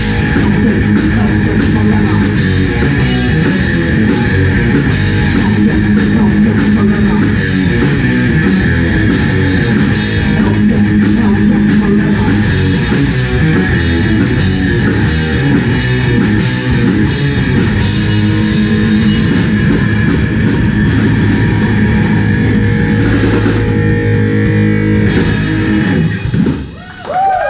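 Live rock band playing loud heavy metal with distorted electric guitars, bass and drum kit. About 26 seconds in the band drops out briefly, then a sliding note bends downward in pitch.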